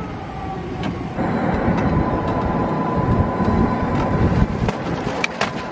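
Electric golf cart driving along a paved road, with the rumble of tyres and wind on the microphone. About a second in it picks up a little and a steady high whine sets in, with a few sharp clicks near the end.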